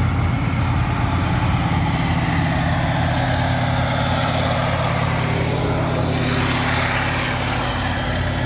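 2S19 Msta-S tracked self-propelled howitzers driving past close by. Their diesel engines give a steady low drone, with the rolling noise of their tracks on the road.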